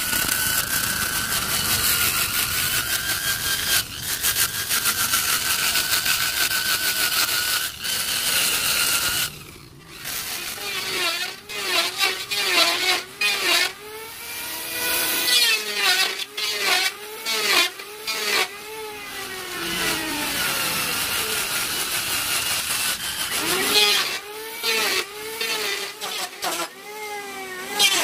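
Power-tool sanding discs grinding hardwood. For the first several seconds a motor runs at a steady high pitch. After a brief break, the angle grinder's pitch sags and recovers over and over, about once a second, as the sanding disc is pressed into the wood and eased off.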